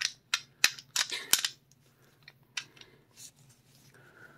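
Metal clicks and clacks of an Altor 9mm pistol being worked by hand, its barrel twisted and pulled back to take out the round: a quick run of sharp clicks in the first second and a half, then a few fainter ticks.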